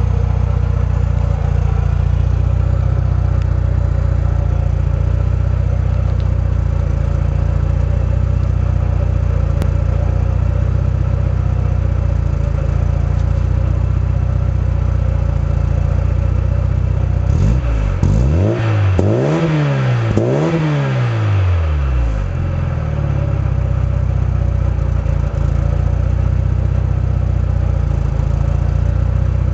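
VW Golf 1.8-litre 8-valve four-cylinder with an Autotech 260 cam, heard at the tailpipe of its 2.25-inch TT cat-back exhaust with dual resonators. It idles steadily, then a little past halfway takes about three quick throttle blips, each rising and falling in pitch, before settling back to idle.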